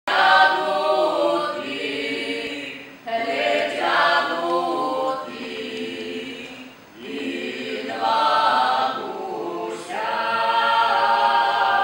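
Several voices singing together unaccompanied, in phrases with brief breaks about three and seven seconds in.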